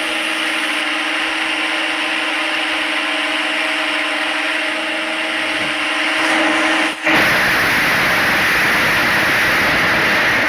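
CNC lathe running with a steady hum. About seven seconds in, the sound cuts out briefly and comes back as a louder, harsher machining noise.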